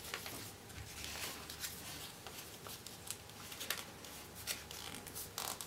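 Sheet of A4 paper being folded by hand, with faint, scattered rustles and crinkles as a corner is pushed inside and creased.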